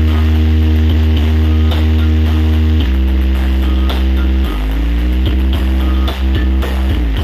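Bass-heavy music played loud through a large sound system of stacked subwoofer cabinets with horn tops during a sound check. Long held deep bass notes shift pitch about three seconds in and slide again shortly after, with a light ticking beat on top.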